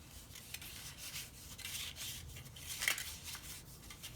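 Cardstock paper petal rustling and rubbing as it is curled around a small wooden dowel rod, with short crackles and a sharper one about three seconds in.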